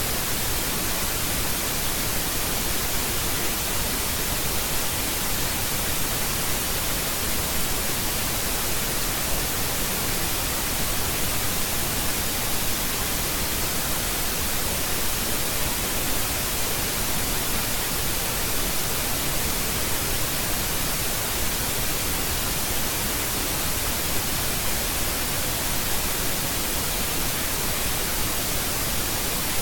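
Steady, unchanging hiss of electronic recording noise, brighter toward the top, with a faint thin steady tone running under it and no other sound.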